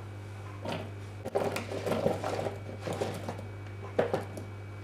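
Diced cucumber pieces tipped from a bowl into a stainless steel pot, landing in a run of irregular soft clatters over a steady low hum.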